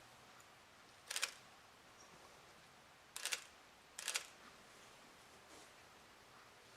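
Three short, sharp clicking crunches over faint room tone: one about a second in, then two close together around three and four seconds in.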